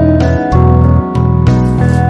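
Background music: held notes that change about every half second.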